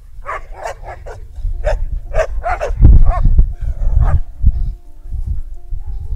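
Dogs barking at each other through a wire fence in quick, repeated barks, several a second. This is fence aggression between two leashed German Shepherd-type dogs. Low heavy thuds come with the lunging and are loudest about halfway through.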